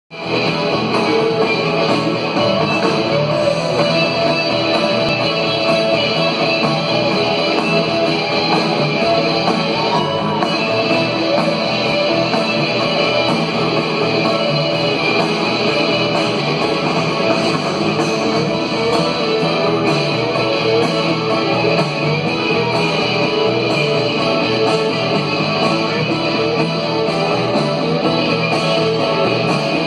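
Live rock band playing through a concert hall's PA, electric guitars prominent over keyboards and drums, heard from the audience. The music runs steadily and loud without a break.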